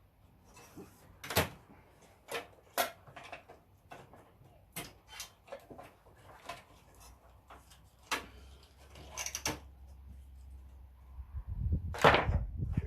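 Irregular clicks, clacks and knocks of metal and plastic computer parts and tools being handled while an old desktop computer is taken apart. Wind rumbles on the microphone in the last few seconds, loudest about twelve seconds in.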